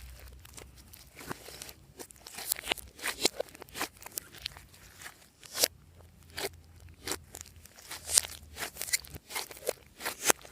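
Hands squeezing and kneading slime, giving a quick, irregular run of sharp sticky clicks and pops.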